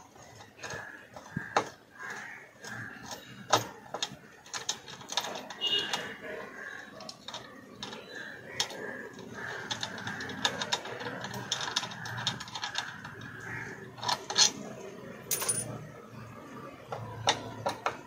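Irregular sharp metallic clicks and clinks of a spanner working the bolts that hold the stator of an LG front-load washer's direct-drive motor.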